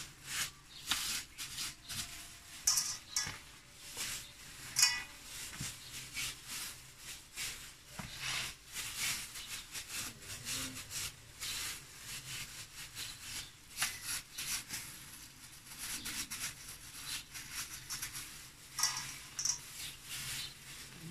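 Clear plastic food-handling gloves crinkling and rustling in short, irregular bursts as hands press and shape ground meat into burger patties.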